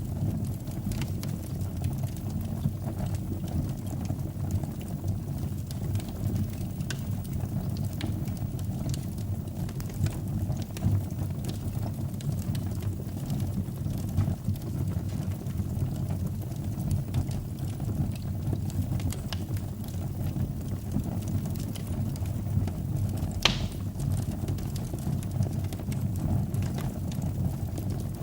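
Wood fire burning in a fireplace: a steady low rumble of flames with scattered faint crackles and one sharper pop late on.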